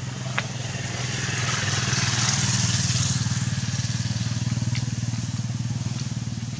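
A motor engine running at a steady low pitch, with a rush of noise that swells about two seconds in and then eases off. A single sharp click sounds about half a second in.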